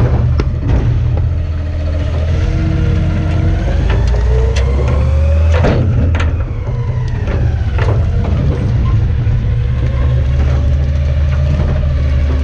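Garbage truck engine running under load while the hydraulic packer works, with a whine rising in pitch about four seconds in and easing back off. Scattered sharp cracks and knocks come from trash being crushed in the hopper.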